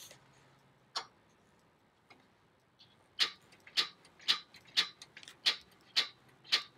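Push-button piezo igniter of a Weber Q2000 propane grill clicking: one snap about a second in, then seven quick snaps about every half second. No flame catches, because the gas has not yet been turned on.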